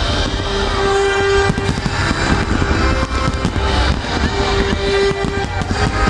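Aerial fireworks shells bursting in quick, overlapping succession: a dense barrage of bangs and crackle, with music playing underneath.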